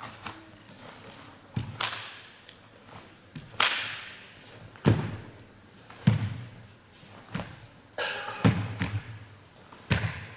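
Sharp snaps of a karate gi and thuds of bare feet striking the mat as a karateka executes the techniques of a kata, about six separate strikes spread a second or two apart, each followed by a short echo.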